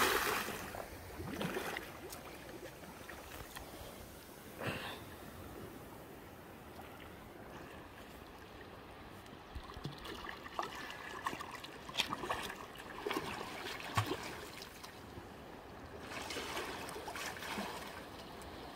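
Seawater splashing and lapping around a swimmer in snorkel and fins: a big splash from his jump into the water dies away at the very start, a few small splashes follow, and his fins kick up splashing again near the end.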